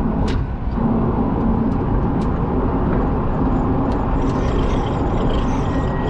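Road and tyre noise inside the cabin of a Rimac Nevera electric hypercar prototype on the move: a steady low rumble with a few sharp ticks.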